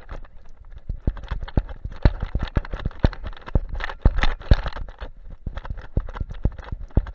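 Irregular knocks and thumps, several a second, from the strides of an Alaskan Malamute carrying a camera on its back, with fur and harness rubbing and rustling against the housing.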